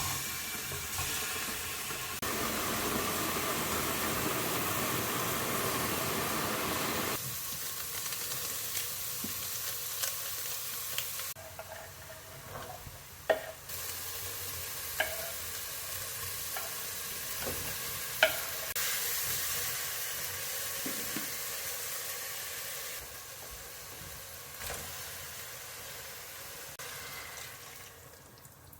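Food sizzling in a frying pan, a steady hiss that shifts in level at several abrupt changes, with a few sharp clinks of a utensil against the pan around the middle.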